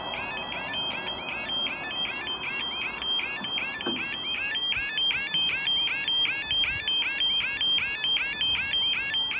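Railway level crossing alarm sounding a fast, even run of high bleeps, several a second, instead of its usual yodel. This is the crossing's faulty 'bleeping' alarm, which sounds like a pedestrian crossing bleeper.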